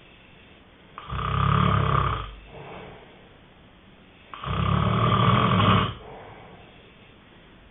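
Snoring in deep sleep: two loud snores about three and a half seconds apart, each lasting about a second and a half, with a soft breath out after the first.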